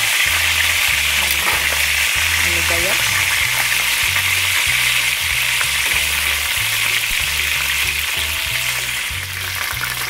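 Hot cooking oil sizzling steadily in a wok where pork hock has been frying to golden brown; the sizzle eases a little near the end.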